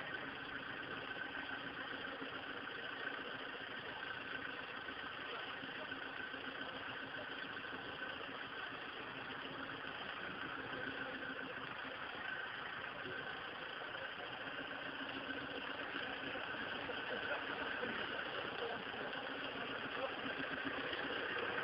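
Off-road Jeep engine running at low revs as the Jeep crawls over logs and stumps on a trial course. It grows steadily a little louder toward the end as the vehicle comes closer.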